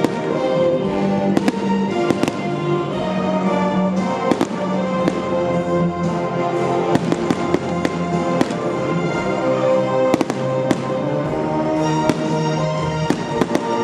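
Aerial fireworks going off in many sharp bangs and crackles at irregular intervals, over loud music with long held notes.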